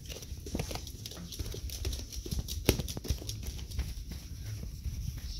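Irregular taps and knocks over a low rumble from a phone being handled and carried along at floor level, with a sharper knock a little over halfway through.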